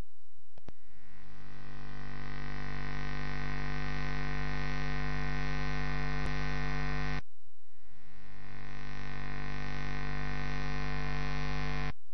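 Steady electrical mains hum and buzz, with no other sound; the buzzier upper part cuts out briefly about seven seconds in while the low hum carries on.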